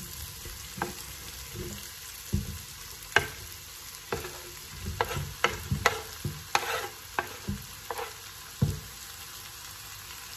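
Wooden spoon scraping and knocking shredded chicken off a wooden chopping board into a pot, a string of irregular sharp knocks, thickest in the middle, over a steady low sizzle of vegetables and hot dog slices frying.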